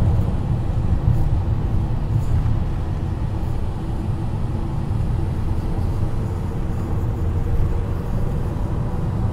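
Steady low rumble of engine and road noise inside the cabin of a moving passenger van.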